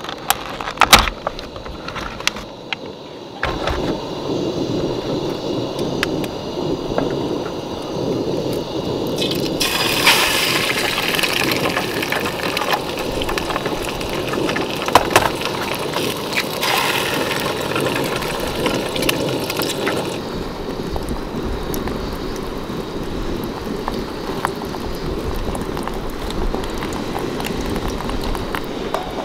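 Eggs frying in oil in a camping pan, a steady sizzle that turns louder and hissier about ten seconds in and eases off again about ten seconds later. A few sharp plastic clicks of an egg carton being opened come near the start.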